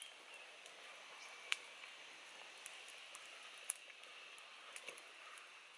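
Metal spoon stirring in a steaming cooking pot, with a few sharp clinks against the pot, the clearest about a second and a half in and near four seconds, over a faint steady hiss.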